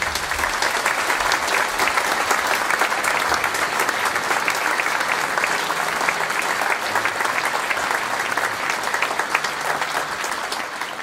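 A large audience applauding, a dense clatter of many hands clapping that breaks out straight after the last chord of the music and dies away near the end.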